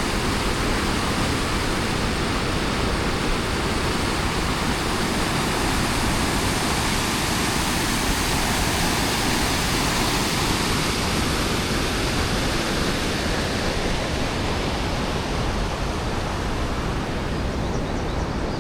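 Large river waterfall, water rushing over rock ledges in a steady, unbroken roar of white water.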